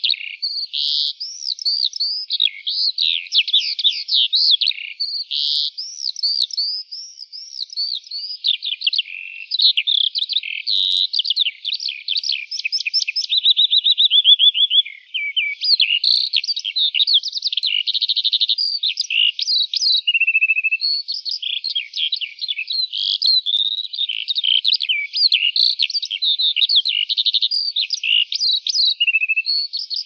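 Lark singing one long unbroken song of fast, high-pitched warbles, chirps and trills, with a brief even rapid trill about thirteen seconds in.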